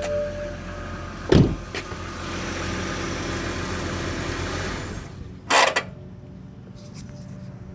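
2007 BMW 328xi with a steady low hum and a whirring noise, a sharp knock about a second in, then the hum stops about five seconds in and a loud clunk follows. The owner suspects the transmission.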